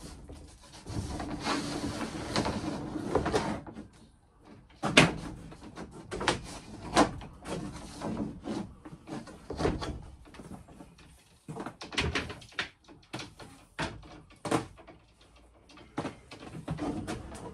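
Scraping and rustling, then a series of sharp knocks and taps as hands push and work the ceiling panels to feed a cable through the gap above them.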